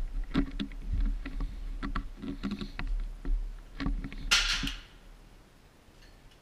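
Air rifle being handled at a shooting bench: a run of clicks and knocks over a low rumble, with a louder, short rushing burst about four seconds in, then quiet.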